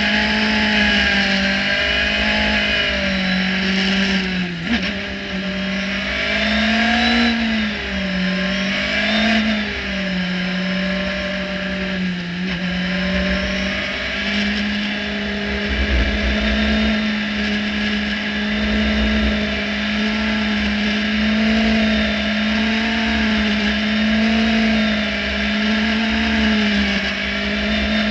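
Radical SR3-RSX race car's motorcycle-derived four-cylinder engine heard onboard, running steadily at moderate revs in a low gear. Its pitch wavers gently up and down with small throttle changes and rises briefly a few times. Low wind buffeting on the microphone runs underneath.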